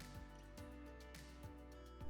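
Quiet background music: held tones with a soft, irregular low beat.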